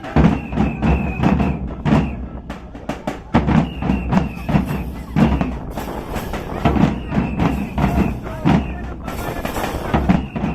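Dhak, the Bengali barrel drum, beaten with sticks in a fast, dense rhythm, with a high steady tone sounding in stretches of a second or two over the drumming.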